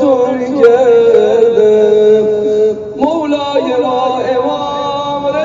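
A man chanting a devotional lament in long, drawn-out notes that waver and slide, with a short break about three seconds in before the next phrase begins.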